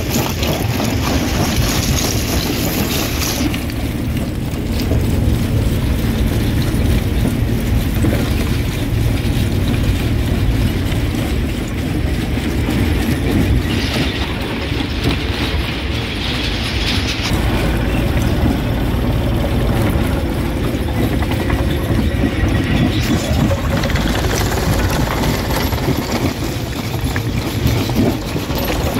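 Rock crusher running under load: a heavy, steady rumble with irregular clatter and cracking of stone being broken. There are brighter stretches of rattle near the start and about halfway through.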